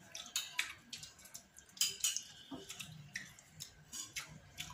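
Scattered small clicks and taps of people eating at a table: a spoon tapping a small bowl and boiled soybean pods being handled and shelled.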